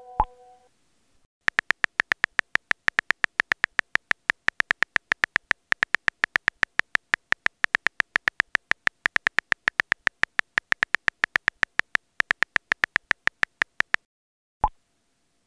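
iPhone on-screen keyboard clicks as a message is typed, a quick run of ticks at about five to six a second, with a brief pause or two. A short pop of a chat message being sent comes right at the start and again near the end.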